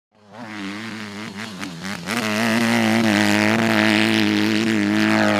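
Motocross bike engine revved in short blips with the pitch rising and falling, then held at high revs about two seconds in; it cuts off suddenly at the end.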